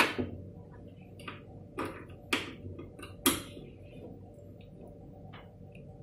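Plastic clicks and light knocks of RJ45 plugs and Cat5 patch cables being handled and plugged into a small PoE cable splitter: a handful of separate short clicks, the sharpest about two and a half and three and a quarter seconds in.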